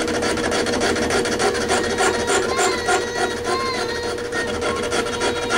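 Metal lathe running and taking a cut on a metal part: a steady machine whine under a dense, fast rasping chatter from the tool, with a few short rising-and-falling squeals in the middle.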